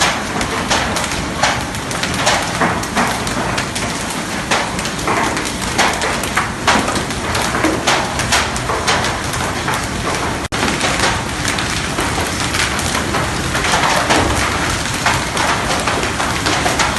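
Hail falling with heavy rain: a dense steady hiss full of sharp clicks as hailstones strike hard surfaces.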